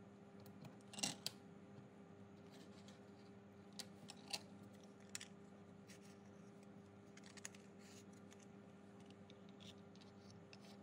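Faint clicks, taps and light scrapes of 3D-printed plastic gears and frame parts being handled and fitted together, the sharpest pair about a second in, over a low steady hum.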